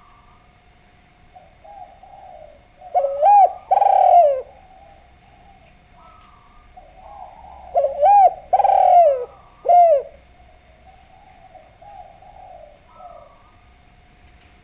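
Spotted dove (derkuku) cooing: two loud phrases of rising-and-falling coos about five seconds apart, with softer coos in between.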